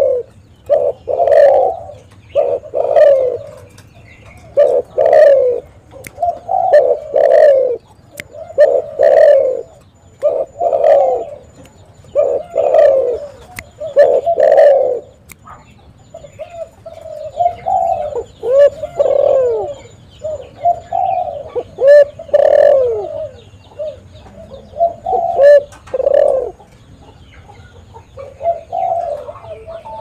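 Spotted dove (tekukur) cooing over and over in quick runs of short, low coos. After a brief pause about halfway through, the coos come with a rise and fall in pitch.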